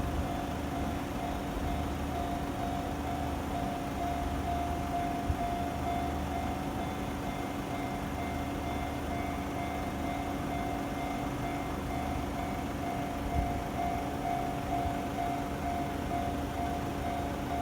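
Japanese railway level-crossing alarm ringing continuously, its electronic bell repeating the same pulsing tone, with a low rumble underneath.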